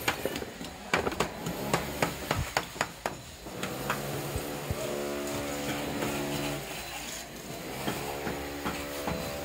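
Sharp knocks of a hand tool on brick and masonry, about three a second, for the first three seconds or so. A steady low hum comes and goes in the second half.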